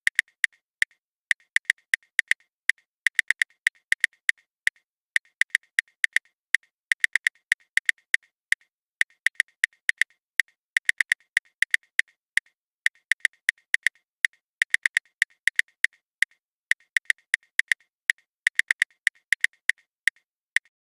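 Typing on a smartphone's on-screen keyboard: crisp key clicks come in quick irregular runs of a few a second, broken by short pauses.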